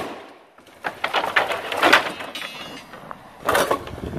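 Wooden pallets toppling one into the next in a chain reaction: a dense run of knocks and clattering wood lasting about a second and a half, then another burst of wooden clatter near the end.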